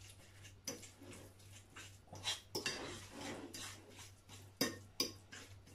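A metal fork mashing and stirring a tuna-and-tomato filling in a ceramic bowl, scraping and clinking against the bowl in irregular strokes, with two sharp clinks near the end.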